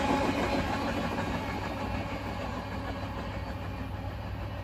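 Freight train of autorack cars rolling away on the rails, a steady rumble that fades as the end of the train recedes.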